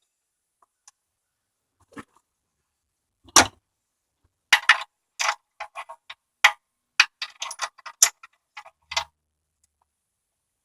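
Ratchet and socket extension working a spark plug loose: a loud click about three seconds in, then a run of uneven metallic clicks and clacks over the next few seconds.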